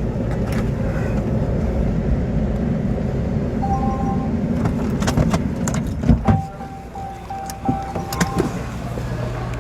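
Patrol car rumbling along at low speed with occasional clicks and knocks. The rumble drops away about six seconds in as the car comes to a stop. A thin steady electronic tone sounds briefly around four seconds in and again for a couple of seconds after the stop.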